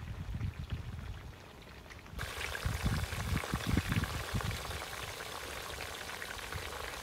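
Chicken pieces simmering in liquid in an electric skillet: a steady fine bubbling crackle that starts suddenly about two seconds in. Low thumps on the microphone come over it for a couple of seconds just after it starts.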